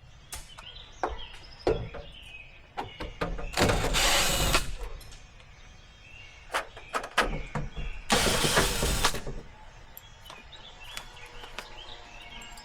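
A power driver driving the screws that fasten a meter box to the wall, in two short runs of about a second each, with knocks and clicks of handling the box and hardware between them.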